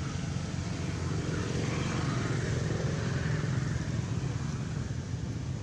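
A steady low rumbling drone with a hiss above it, a little louder around the middle.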